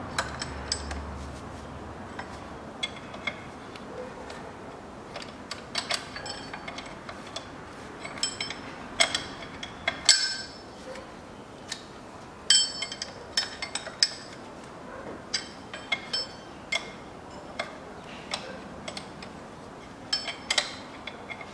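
Metal tools clinking and clicking irregularly against fittings on the 1.3 Multijet diesel's injector fuel lines as air is let out of the fuel system, which holds air after the engine swap and keeps the engine from starting.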